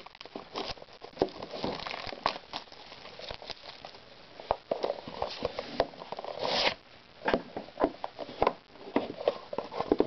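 Packaging of a hockey card box being handled and opened: scattered crinkling, crackles and small clicks, with a short louder rustle about six and a half seconds in.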